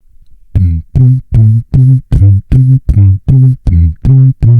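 Beatboxing: a steady run of short, deep, buzzing bass notes on one pitch, about three a second, each starting with a sharp click.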